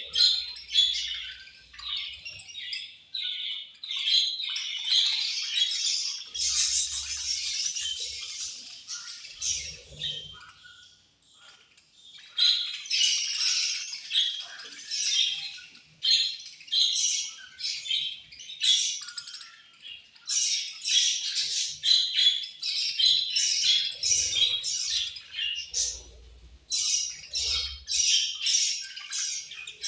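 A group of budgerigars chirping and squawking in rapid, overlapping calls, with a brief lull about eleven seconds in.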